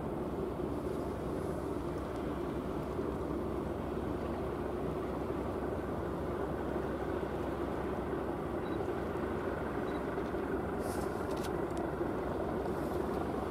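Ship engines running with a steady low rumble, as a tugboat pushes against the hull of a large sailing ship during unberthing.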